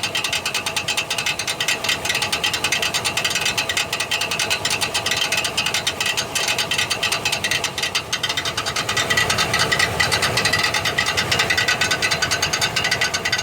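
Starter of a 1999 Chevrolet Silverado 1500 4.8 making a rapid, continuous metallic clatter: its Bendix drive pinion is bouncing off the flywheel ring gear, a sign of a bad Bendix shaft. The clatter gets louder about nine seconds in.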